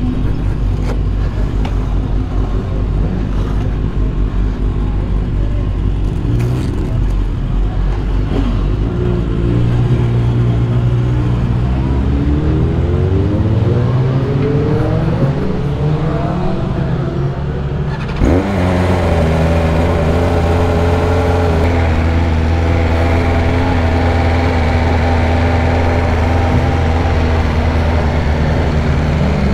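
Superbike engines running: in the first half one revs with a slowly rising pitch, then about two-thirds of the way through an engine fires up and settles into a steady idle.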